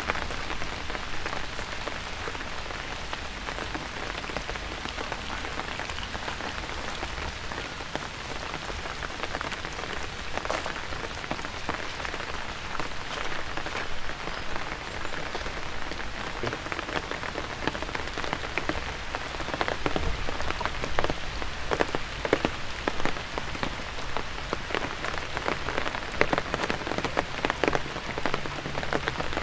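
Steady rain falling on a wet paved path and grass, with many sharp, close drop ticks that come more often in the second half.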